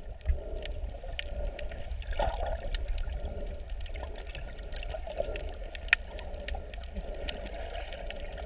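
Underwater sound picked up by a camera submerged in seawater: a steady, muffled low rumble of the water with scattered sharp clicks and crackles. Two of the clicks stand out louder, one just after the start and one about six seconds in.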